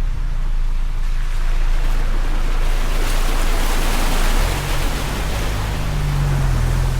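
Ford Bronco driving, its engine droning low under a hiss of tyre and road noise that swells about three seconds in; the engine note shifts about four and a half seconds in.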